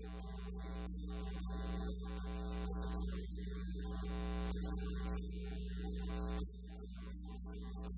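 Steady low electrical hum, with fainter steady tones above it.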